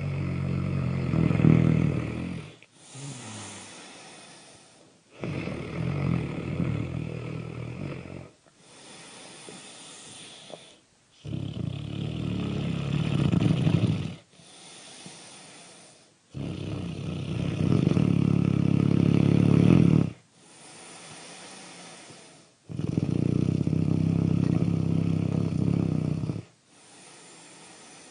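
Loud, low snoring in a slow, even rhythm: five long snores, one about every five to six seconds, each followed by a softer, breathy out-breath.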